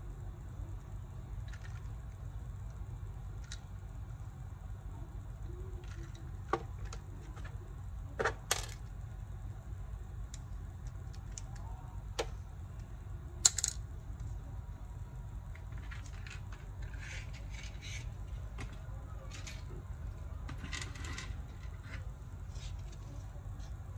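Scattered light clicks, taps and brief scrapes of a screwdriver, screws and hands working on a laptop's plastic case during disassembly, with the sharpest clicks about eight and a half and thirteen and a half seconds in, over a steady low hum.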